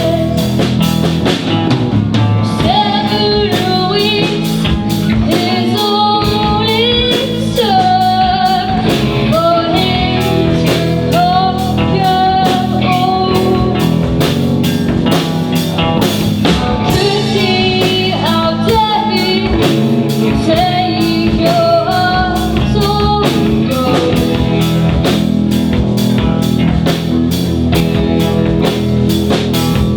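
A rock band playing live: a singer over electric guitar and a drum kit, in a bluesy rock song with a steady beat.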